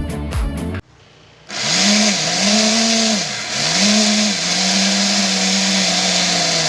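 Small Tamiya DC motor spinning the cutter of a miniature popsicle-stick grass chopper through a rubber-band and toy-pulley drive. It starts about a second and a half in with a high whine and hiss, its pitch sags and recovers three times, then holds steady.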